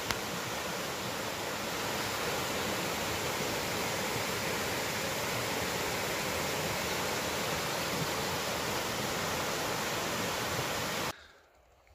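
A shallow river rushing over rocks and small cascades, a steady even rush of water that stops abruptly near the end.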